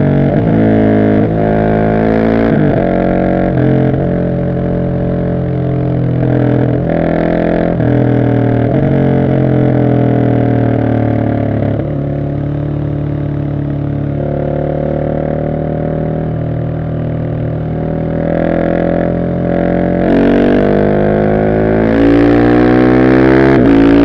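Husqvarna 701 SM single-cylinder engine through an Arrow exhaust with the catalytic converter removed, ridden hard. The engine revs climb and break off again and again as the gears change, settle into a lower, steadier run in the middle, then climb and get louder again near the end.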